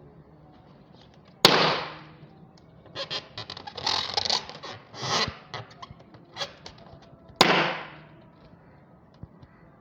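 Two loud balloon pops, one about a second and a half in and one about two seconds before the end, each fading over about half a second. Between them come a couple of seconds of irregular, sputtering, fart-like noise.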